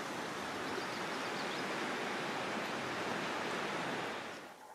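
Steady rushing noise of strong wind and the fast, high river current, fading out near the end.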